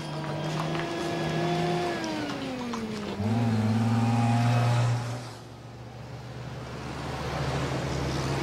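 Jeep engine running as it drives along a dirt road. Its pitch falls about two seconds in, a louder low drone follows as it comes close, then the engine eases into a wash of road and tyre noise.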